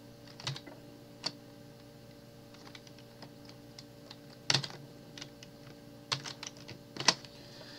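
Sparse, irregular clicks of a computer keyboard, some single and some in quick little groups, over a faint steady hum.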